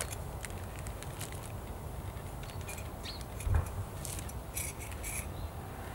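Outdoor garden ambience with a steady low rumble and scattered short bird chirps. A dull thump comes about halfway through, and brief light rustling and clicking follows near the end as gear is handled and set down on the ground.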